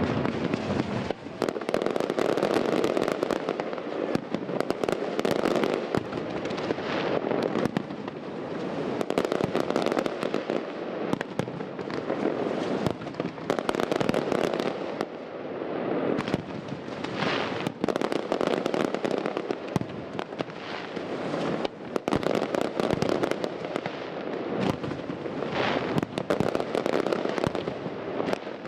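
Aerial fireworks display: a dense, continuous barrage of pops and crackles from rising comets and bursting shells.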